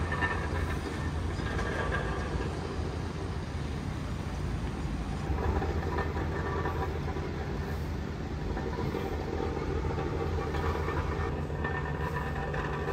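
Steady low rumble of busy street ambience from traffic and idling vehicles, with construction machinery nearby.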